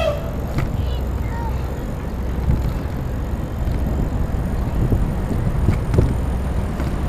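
Steady low wind-and-road rumble on a camera riding a Citi Bike through city traffic, with a few sharp knocks from the bike.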